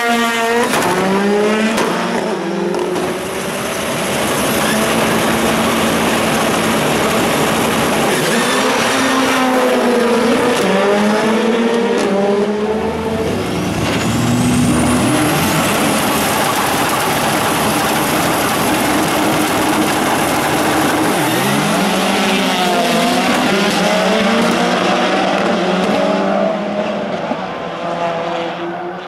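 Turbocharged rallycross cars launching and accelerating hard, engine notes climbing and dropping back several times as they pull through the gears, loud and continuous.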